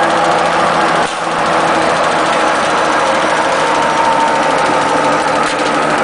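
Belt-driven wood chipper running steadily, a continuous mechanical drone with a steady whine over it, dipping briefly about a second in.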